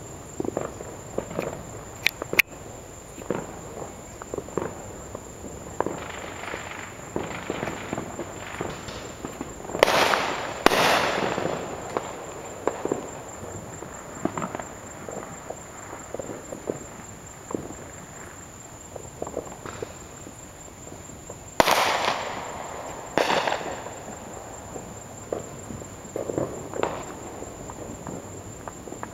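Fireworks and firecrackers going off: a steady scatter of small pops and crackles, with four louder echoing bangs, two close together about ten seconds in and two more about a dozen seconds later.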